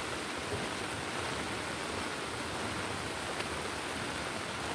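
Steady rush of a rain-swollen river in flood, an even hiss of moving water with no breaks.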